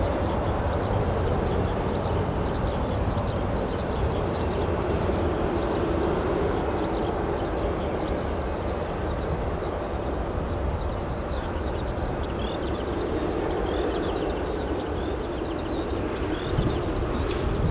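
Steady rumble of a Boeing 747-8F freighter's jet engines heard from a distance, with a held low hum and short high chirps scattered throughout.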